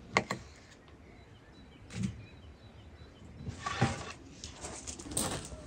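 Four separate knocks and clatters of handling work, the first a sharp click, the third a longer rattling clatter ending in a knock.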